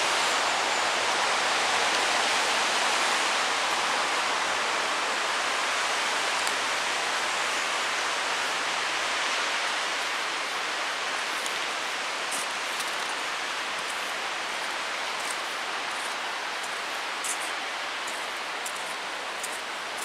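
Steady hiss of road traffic, strongest at the start and slowly fading. A few faint clicks come in the second half.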